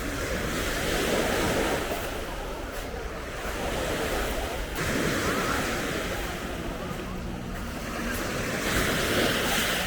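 Sea waves breaking and washing up the beach, surging louder about every four seconds, with wind buffeting the microphone.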